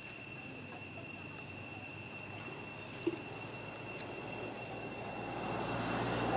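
Outdoor ambience: a steady high insect drone, with a faint knock about three seconds in and a low rumble swelling in the last second or so.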